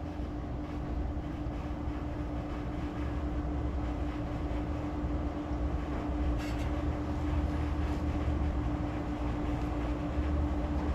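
A steady machine hum with one constant tone over a low rumble, and a faint click about six and a half seconds in.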